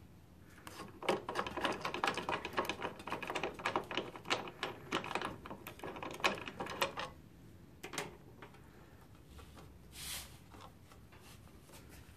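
A ratchet clicking rapidly in short runs as a T40 Torx windshield hinge bolt is turned out, loose and easy to back off. The clicking stops about seven seconds in, followed by a couple of single clicks.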